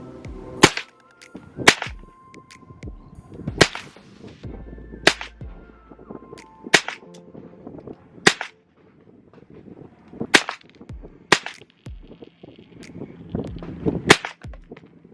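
A gun fired one shot at a time, about nine sharp, loud shots spaced irregularly one to three seconds apart, aimed at clay targets downrange.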